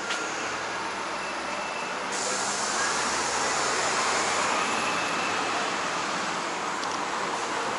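Steady road traffic noise that grows louder about two seconds in, as if a vehicle is passing close by.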